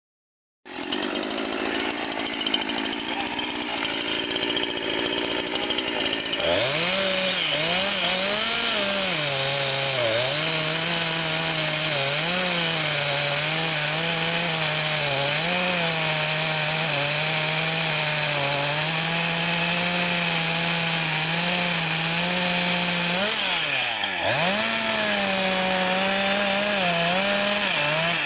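Two-stroke chainsaw with a short bar cutting through an oak trunk during felling. It runs at full throttle, and its pitch wavers and sags each time the chain bites under load, dipping sharply twice.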